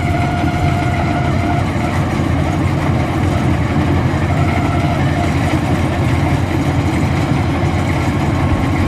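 Maxxi Bimo NDR 102L combine harvester running steadily and loud, its engine noise heavy and low, with a faint steady whine that fades out about a second and a half in.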